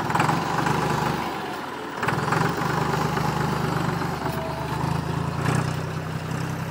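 Massey Ferguson tractor engine running as the tractor is driven. The engine gets louder about two seconds in, and there are a few brief knocks.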